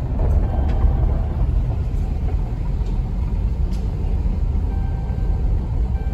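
Steady low rumble of a car's tyre and road noise, heard inside the cabin while driving on a packed gravel road, with a few faint ticks.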